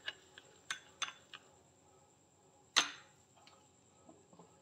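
Metal spoon stirring a flour paste in a glass bowl, clinking against the glass a few times in the first second and a half, with one louder clink near three seconds in.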